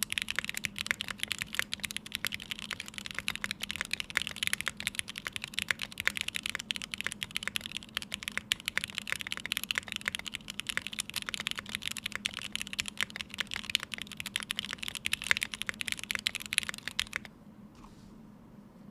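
Fast, steady typing on a 60% mechanical keyboard with lubed Gateron X linear switches in an aluminium plate and GMK keycaps, a dense run of keystroke clicks. The typing stops about two seconds before the end, leaving faint background hum.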